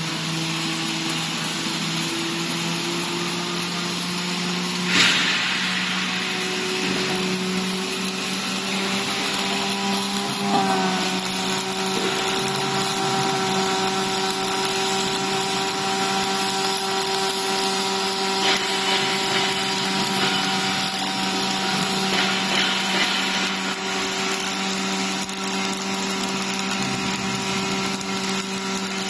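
A robotic MIG welding arc hissing and crackling steadily over a steady machine hum, with one sharp crack about five seconds in.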